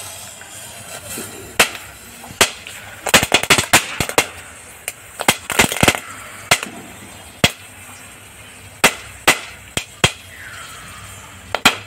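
Chatar patar crackling firecracker going off while floating on water in a plastic bucket: a long run of irregular sharp pops, bunched in quick volleys about three and five seconds in, over a steady hiss. It keeps firing despite the water, its pops a little muted.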